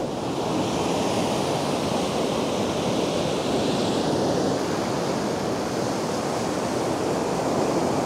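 Ocean surf breaking on a sandy beach: a steady, even rush of waves.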